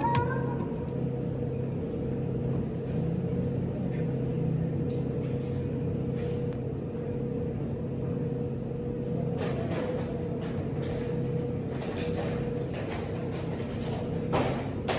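Steady motor hum with one held tone, and scattered clicks and knocks in the second half.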